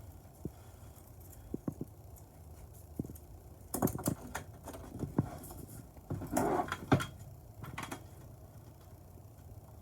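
Hands handling the cords and small parts of a honeycomb shade: scattered light clicks, then a run of sharp clicks and rubbing in the middle as cord is fished and pulled through.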